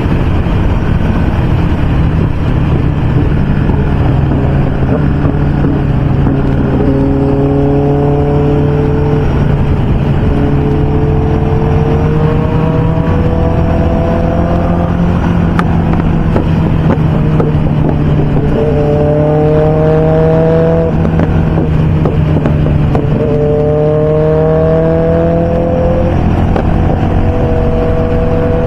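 Motorcycle engines at highway speed over steady wind rush: one engine holds a steady low note, while another climbs in pitch in four or five separate runs, each picking up again after a short break, like a bike pulling through its gears.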